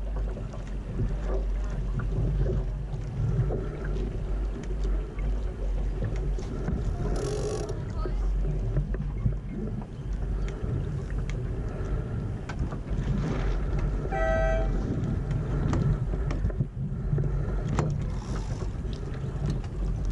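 Laser sailing dinghy moving under sail in light wind: a steady rumble of wind on the microphone and water along the hull, with scattered clicks and knocks from the boat's fittings and a couple of brief splashes. A short, pitched tone sounds once, about fourteen seconds in.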